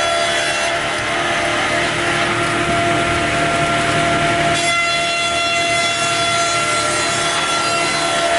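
Amix OF-300 slab saw running with a steady machine hum while cutting a bark-edged wood slab fed in on its belt conveyor; a coarse sawing noise is strongest from about a second in until about halfway, then the machine runs on.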